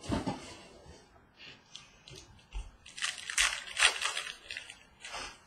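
Trading-card pack wrappers crinkling and tearing open, with cards handled between. There is a rustle near the start and a louder run of crackly crinkles about three to four seconds in.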